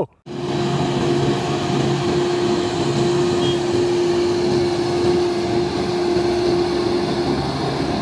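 Grove GMK6300L all-terrain crane driving along a road: a steady engine drone with a held tone over a haze of engine and road noise, the tone dropping away near the end.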